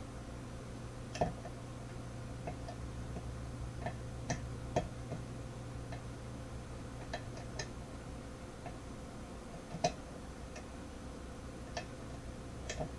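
Faint, irregular clicking of a lock pick and tension wrench working the pins of a pin-tumbler challenge lock, scattered taps with a louder click about a second in and another near ten seconds. These are the small clicks and feedback of pins being lifted and set while picking.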